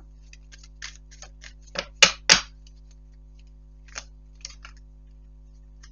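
Tarot cards being handled and shuffled by hand: scattered light clicks of card on card, with two louder clicks about two seconds in.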